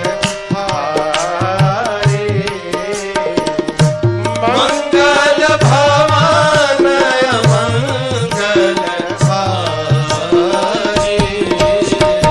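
Background music: repeated low hand-drum strokes under a bending melody, over a steady held drone note.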